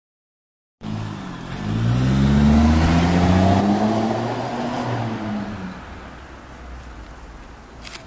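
A motor vehicle's engine passing by. It cuts in abruptly about a second in, swells while its pitch rises, then falls in pitch and fades away.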